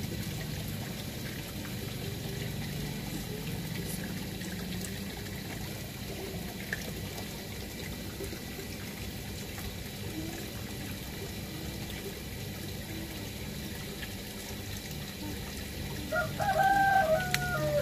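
A rooster crowing once near the end, a wavering call of about a second and a half that is the loudest sound here, over a steady low background hum.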